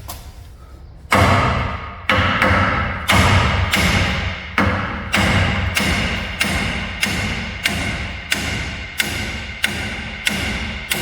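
Sledgehammer striking steel over and over, driving out a stuck control-arm bolt on a Dodge Dakota's front suspension. About eighteen blows, roughly two a second, start about a second in, each one a sharp metallic clang that rings out briefly.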